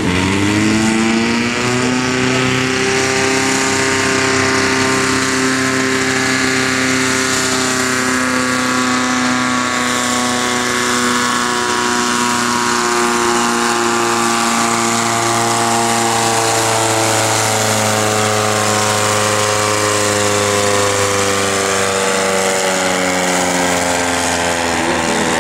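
International tractor's diesel engine running flat out under full load as it pulls a weighted sled. The engine note climbs sharply in the first second, then holds high and steady through the pull.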